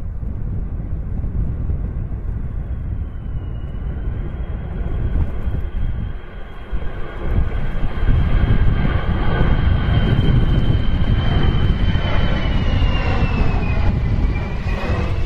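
An easyJet Airbus A320-family jetliner's engines as it passes low overhead on landing approach. A steady high whine sits over a heavy rumble, and both get louder about eight seconds in. The whine drops in pitch near the end as the jet goes over.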